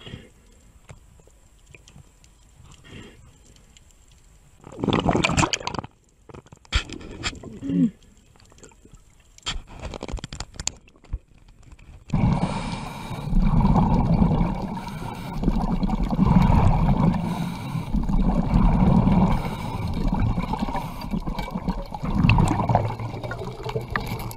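Underwater sound of a scuba diver breathing, the exhaled bubbles gurgling in regular surges about every second and a half. Before that there is a quieter stretch with a short rush of water and scattered scrapes and clicks.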